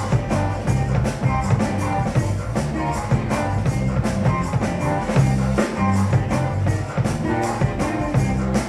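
Band music with a steady drum beat and a moving bass line.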